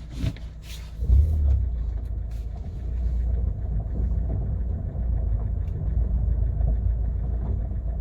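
Kia Cerato with its 1.6 G4FC engine moving off in reverse, heard from inside the cabin: a few short clicks, then from about a second in a steady low rumble. No knock comes from the doors, whose worn hinges have just been replaced.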